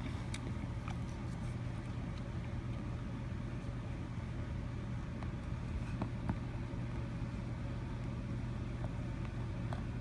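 A steady low hum with a few faint, scattered clicks, the snips of scissors cutting into a silicone bead bracelet.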